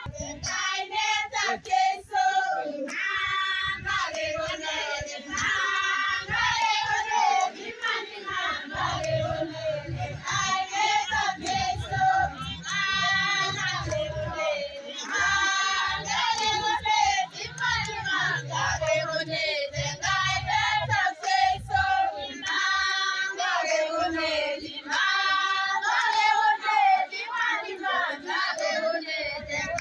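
A group of women singing together, a continuous high-voiced group song, with a low rumble underneath for a stretch in the middle.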